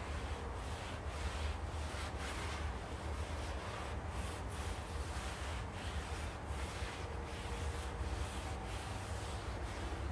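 Rhythmic rubbing strokes, about two a second, over a steady low rumble.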